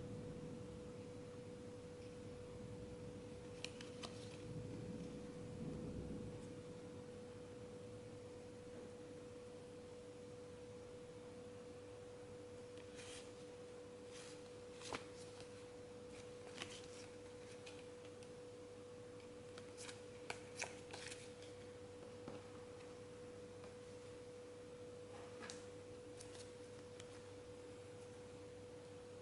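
A faint, steady, mid-pitched electrical whine runs throughout. Over it come a few scattered light clicks and taps, some in quick pairs about twenty seconds in, and a low rustle in the first six seconds.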